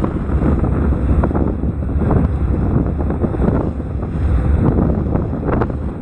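Heavy wind buffeting the microphone over the low rumble of a boat under way on the sea, with water noise.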